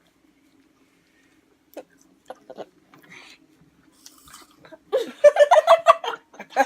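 A few soft chewing and crunching clicks, then a burst of high-pitched laughing about five seconds in, which is the loudest sound.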